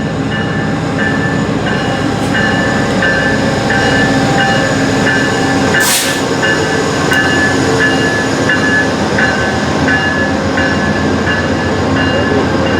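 VIA Rail passenger train rolling past at close range, its coaches' wheels running on the rails with a steady rumble. A short high ringing tone repeats at an even pace, about one and a half times a second, and a brief sharp noise cuts through about six seconds in.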